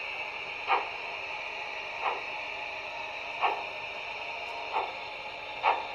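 Märklin gauge 1 BR 78 model steam locomotive's sound decoder playing slow steam-exhaust chuffs, about five a little over a second apart, over a steady hiss, as the model runs at low speed.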